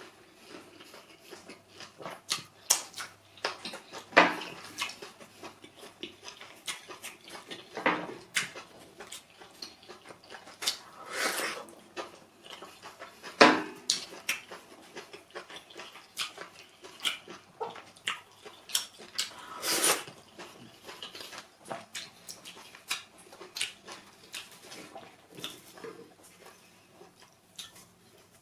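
Mouth eating sounds of pounded yam fufu with efo riro vegetable soup: wet chewing and lip smacks, coming irregularly, with a few louder smacks.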